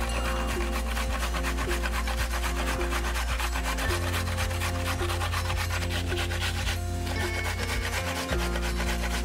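Raw vegetable being grated on a hand grater: a continuous, fast rasping of strokes with a short break about seven seconds in.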